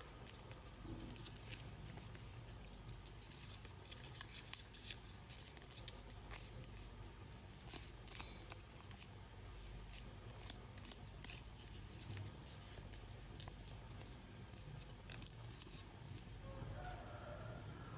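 A sheet of origami paper being folded and creased by hand: faint, irregular crackles and crisp little clicks of the paper.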